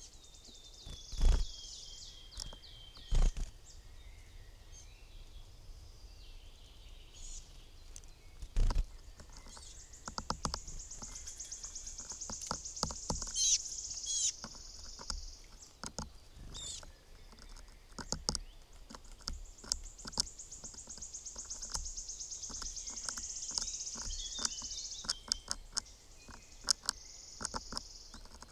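Small wild birds singing and chirping, with two long, rapid trills, mixed with three loud knocks in the first nine seconds and clusters of sharp taps after them, from birds landing and pecking at a seed feeder.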